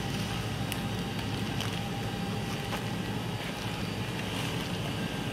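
Steady hum of room machinery with a few faint clicks and knocks of handling in the first few seconds.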